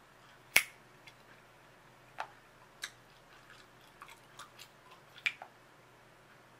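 Bubble gum being chewed with the mouth open, giving sharp wet clicks and snaps: a loud one about half a second in, two more a couple of seconds later, and a quick run of smaller ones in the second half.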